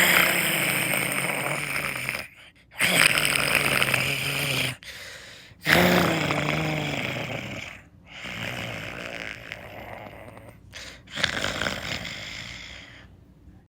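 A cartoon dog character snoring, performed by a human voice: five long snores of about two seconds each, the last two quieter.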